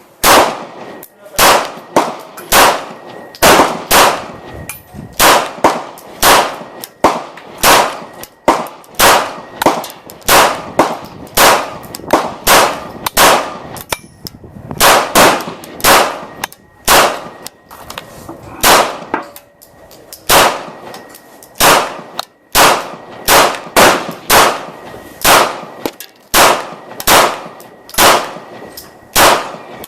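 Glock 19 Gen4 pistol firing Tula 9mm 115-grain ammunition in steady semi-automatic fire, about two shots a second, with a couple of brief pauses partway through.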